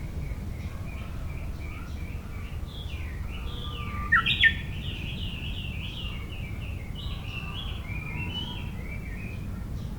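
Wild birds singing, a long run of quick, varied chirping notes, with one louder, sharper call about four seconds in. A steady low rumble lies under it.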